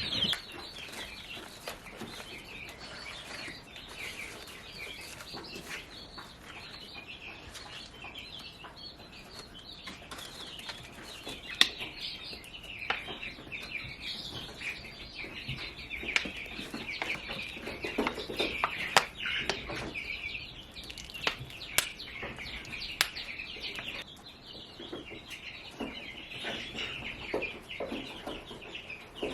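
Baby chicks peeping continuously in high, rapid chirps, with a few sharp knocks in the middle.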